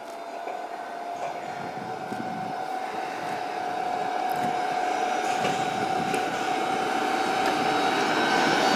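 Electric locomotive drawing nearer with a steady whine from its motors, slowly growing louder, over the noise of the train running through snow on the track.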